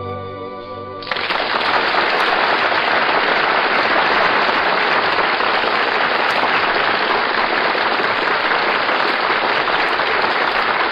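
Audience applauding steadily, starting about a second in as the orchestra's final chord ends.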